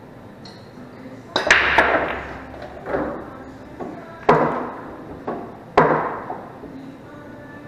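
A 9-ball break shot: about a second and a half in, a sharp crack as the cue ball smashes into the rack, then a clatter of balls clacking off each other and the cushions. Several more separate loud clacks follow over the next four seconds.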